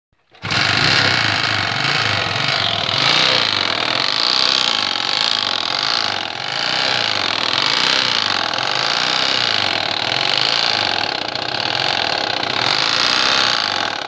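Irbis Sirius motorcycle engine running with a loud, rapid knocking from the motor, which the owner calls a huge knock of unknown cause. It starts about half a second in and keeps going steadily.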